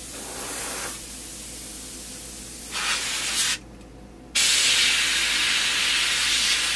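Airbrush hissing as it sprays paint onto a soft-plastic swimbait: a faint spray, a short burst just before halfway, then a steady louder hiss from about two-thirds of the way through.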